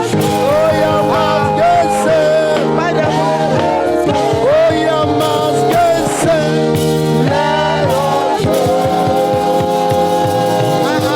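Live church praise music: voices singing over a band, with held chords and melody lines sliding in pitch.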